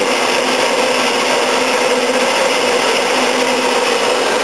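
Small 4.5-inch Harbor Freight metal-cutting band saw running steadily while its blade cuts through a piece of metal under light spring down-pressure.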